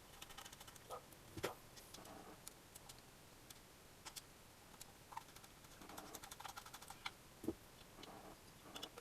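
Faint, scattered light clicks and taps, with two somewhat louder knocks, one about a second and a half in and one near the end.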